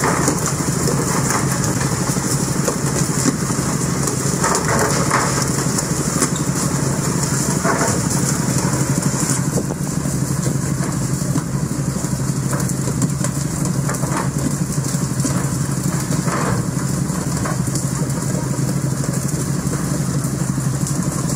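Fishing boat's inboard engine running steadily under the constant hiss of the boat's water-spray jets spattering onto the sea.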